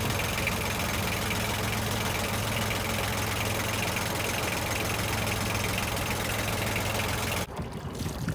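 Boat engine idling steadily just after starting, with a low even hum. It cuts off suddenly near the end.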